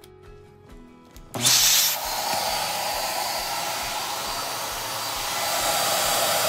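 Electric air pump switching on about a second and a half in, loudest at the start, then running steadily and blowing air into an inflatable gymnastics air mat.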